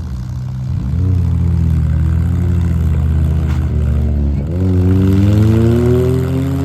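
Demolition derby compact car engines revving hard, their pitch climbing and falling as the cars reverse and charge, with a sustained high rev building near the end.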